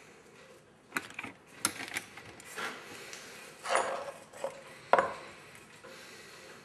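Small metal parts being handled: a string of separate clinks and knocks, the loudest about five seconds in.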